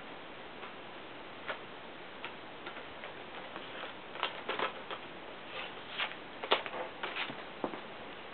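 Scattered light clicks and ticks at irregular intervals, sparse at first and coming more often in the second half, over a low steady hiss.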